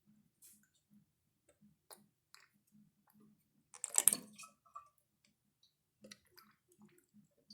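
A small 3D-printed model toilet after a little water has been poured in: faint drips and clicks, then a short splashy gurgle about four seconds in as the bowl drains through its siphon.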